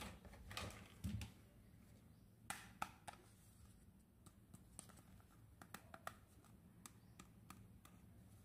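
Faint handling of a small plastic toy hair dryer: scattered clicks and taps of hard plastic under the fingers, with a low thump about a second in and a few sharper clicks close together around the third second.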